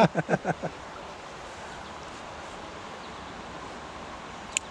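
Steady outdoor background hiss, with one sharp click near the end.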